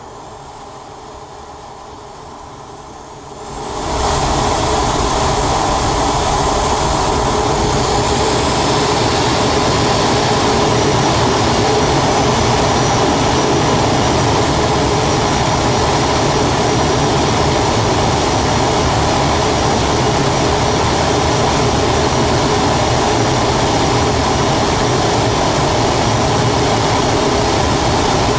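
Boeing 737 takeoff heard from inside the main wheel well: about three seconds in, the sound swells quickly to a loud, steady rush of engine, wind and tyre noise as the jet speeds down the runway on its takeoff roll.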